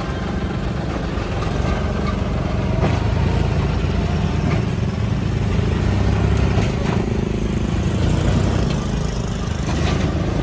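Heavy diesel machinery engine running with a steady low rumble that swells slightly in the middle, with a few faint knocks.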